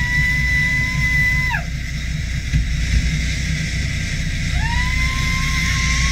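Big-game fishing reel's drag screaming as a hooked bluefin tuna pulls line off it, in two runs: a steady high tone that slides up as it starts and drops away as it stops, the first ending about a second and a half in, the second starting about four and a half seconds in. Under it runs a low steady rumble of the boat.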